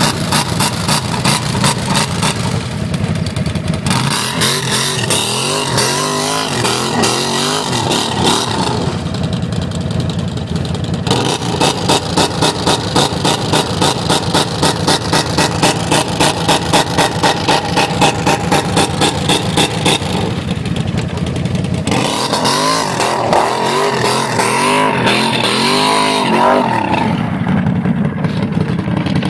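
4x4 ATV engines running and revving, the pitch rising and falling with the throttle, more markedly twice.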